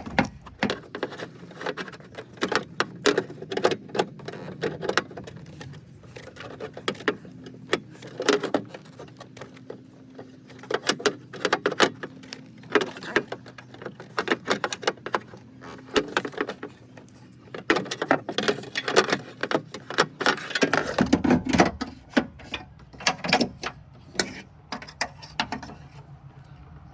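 Irregular metallic clicks, knocks and rattles as a window motor and regulator assembly is worked by hand into place inside a car door.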